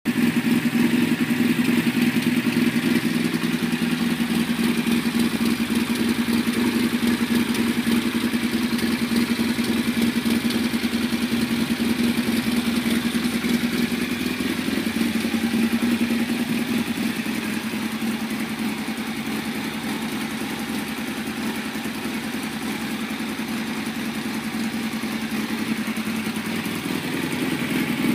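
Yamaha XTZ 750 Super Ténéré's parallel-twin engine idling steadily through an aftermarket GPR exhaust, settling a little quieter about halfway through.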